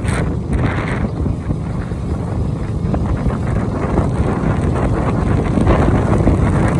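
Steady rush of wind buffeting the microphone over the low, even running of a vehicle's motor, recorded while riding along a street.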